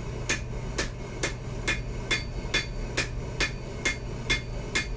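Hand hammer striking red-hot knife steel on an anvil in a steady rhythm, about two blows a second with a short metallic ring after each, flattening the handle area of the blade.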